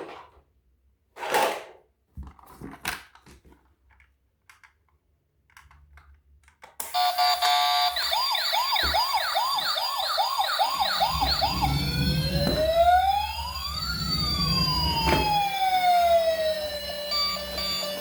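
A few soft clicks and rustles, then about seven seconds in an electronic siren starts. It runs first as a fast yelp of about two rising sweeps a second, then changes to slower rising and falling wails with two tones crossing each other. Near the end it settles into steady tones.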